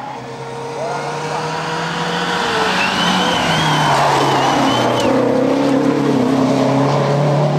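Lancia Delta Integrale rally car's turbocharged four-cylinder engine under load as the car approaches and passes close by, growing louder over the first few seconds and then staying loud. A thin, wavering high squeal comes in about three seconds in, and there is a single sharp click about five seconds in.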